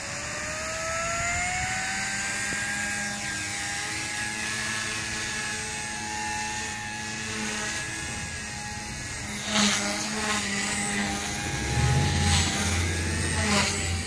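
ALIGN T-Rex 150 micro electric RC helicopter spooling up: a high motor-and-rotor whine that rises in pitch over the first couple of seconds, then holds steady as it lifts off and flies. In the second half, gusts of wind buffet the microphone with a few thumps and a low rumble.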